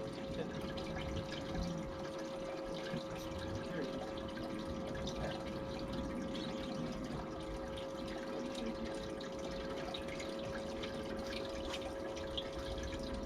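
A small electric pump or motor running steadily with a constant hum, with water running or splashing over it.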